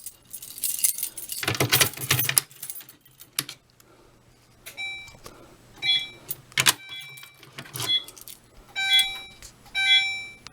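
A Silent Knight PSDA conventional fire alarm pull station is tripped with a metallic rattling clatter for the first couple of seconds. From about five seconds in, a fire alarm notification appliance sounds in short, irregular tone pulses: the panel's walk test briefly sounding the notification circuit for the tripped device. A faint steady hum runs underneath.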